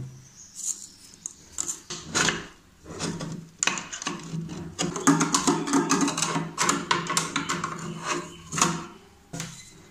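Repeated clicks, knocks and clatter of metal parts being handled at an opened domestic flour mill (atta chakki) as its sieve is changed for coarser grinding.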